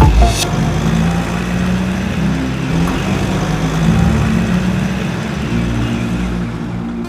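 Motor vehicle engine running steadily, a low even hum with no clear revving.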